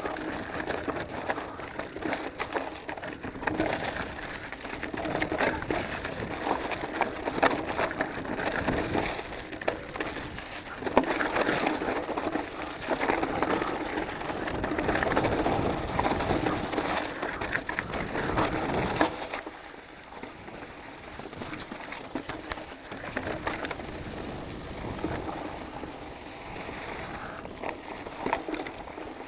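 Specialized Enduro 650b mountain bike rolling fast downhill on Maxxis Minion tyres over loose rock and gravel: a steady crunching noise full of small clicks and knocks. It turns quieter about two-thirds of the way through as the trail smooths to packed dirt.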